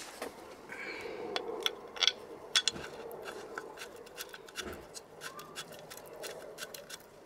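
Steel leg bolt and washer being turned by hand into the lower-unit mounting flange of a Yamaha outboard: scattered light metallic clicks and faint scraping as the threads start, with a couple of sharper clicks about two seconds in.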